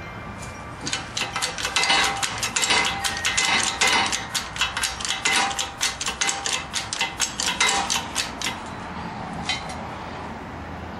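Rapid sharp metallic clicking, several clicks a second, as a shop press is worked down onto a driveshaft U-joint cap. The clicking stops a little before the end.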